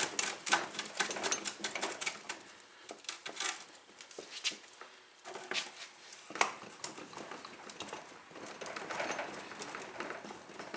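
Scattered metal clinks and knocks as a Honda 300EX rear axle is wiggled and slid out through its worn, loose carrier bearings.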